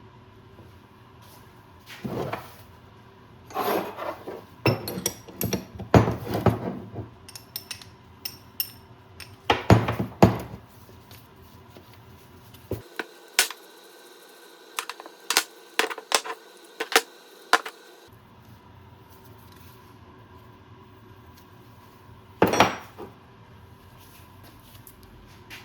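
Metal tools and parts being handled: scattered clinks and knocks, some ringing briefly, coming in clusters with a sharp clank near the end.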